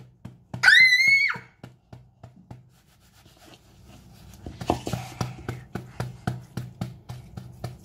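A child's short high-pitched squeal about a second in. From about four seconds in, a tissue is rubbed quickly back and forth over a phone, a rapid scratchy wiping sound.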